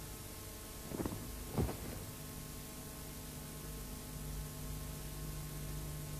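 A faint steady low hum, with two brief soft thuds about a second and a second and a half in.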